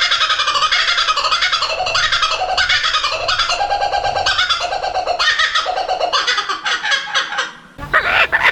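Kookaburra laughing call: a long, loud run of rapid repeated cackling notes that breaks off near the end.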